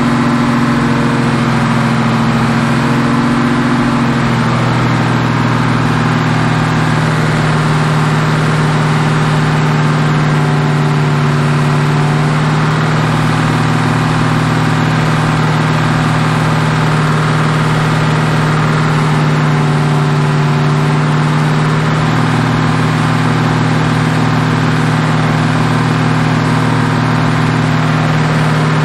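Mopar 440 big-block V8 running at a steady fast idle during the break-in of its new flat-tappet camshaft, its pitch shifting slightly about four seconds in and then holding even.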